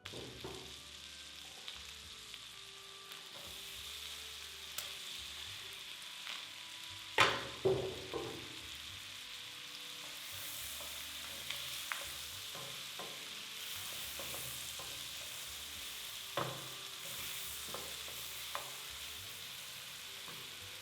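Food sizzling and frying in a hot pan with a steady hiss, stirred now and then, with a few sharp clacks against the pan, the loudest about seven seconds in.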